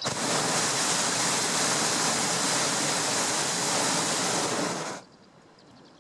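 Hot air balloon's propane burner firing in a single blast of about five seconds: a loud, even rushing hiss that starts and cuts off abruptly.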